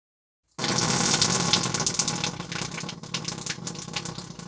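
A long fart: a noisy hiss full of small crackles. It starts suddenly about half a second in and slowly gets weaker.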